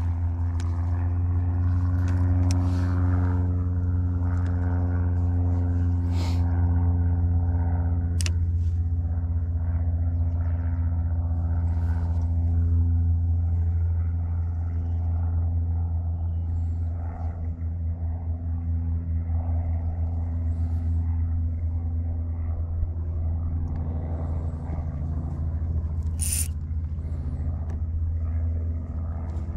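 Electric trolling motor running with a steady low hum, a few sharp clicks and a short rustle near the end.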